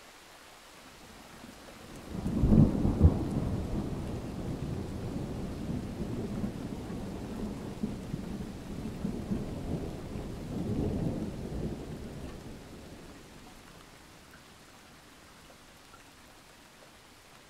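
A long roll of thunder over steady rain. The rumble builds about two seconds in, cracks to its loudest right after, rolls on with a second swell and dies away well before the end.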